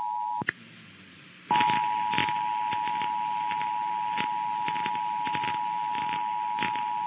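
Emergency Alert System two-tone attention signal: a steady dual tone just under 1 kHz heard over a radio feed with crackling clicks. It cuts off with a click just under half a second in, leaves about a second of faint hiss, then starts again and holds.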